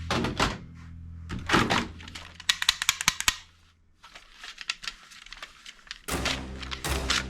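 Sharp plastic clicks and knocks from a toy gun, with a fast run of clicks about two and a half seconds in. Background music with a beat plays underneath, drops out for a couple of seconds, and returns near the end.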